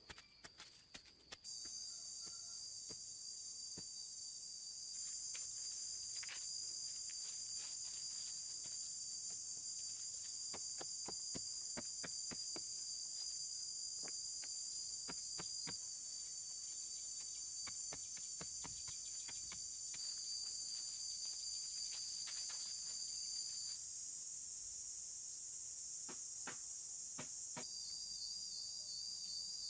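Steady high-pitched insect chorus, with scattered faint clicks and snaps throughout.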